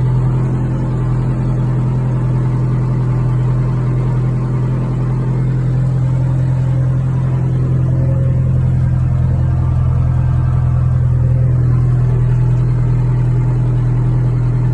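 Tractor engine running at a steady speed, one even low hum that holds without change.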